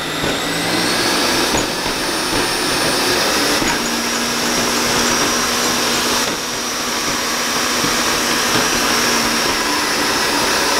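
Kenwood Chef Titanium KVC7300S stand mixer running loud, its motor humming and whining steadily as the K-beater mixes cookie dough in the steel bowl. The whine climbs in pitch over the first second or two as the speed is turned up, and the level dips briefly about six seconds in.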